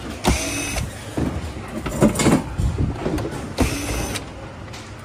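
Screwdriver working screws out of the plastic dashboard of a children's ride-on car: three short scraping, rattling bursts from the screwdriver and the plastic panel being handled.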